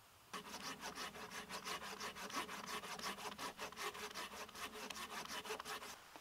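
Hand saw cutting through a thin dead birch branch with quick, even back-and-forth strokes. It starts suddenly about a third of a second in and stops just before the end.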